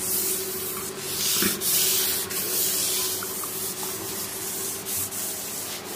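Scouring pad or sponge scrubbing the counter and the gas stove's edge, with repeated rough rubbing strokes.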